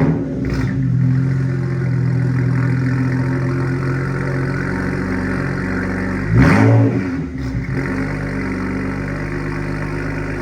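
BMW 135i's N54 twin-turbo inline-six with its muffler removed, starting cold and settling into a loud, steady high idle, with one quick rev about six and a half seconds in.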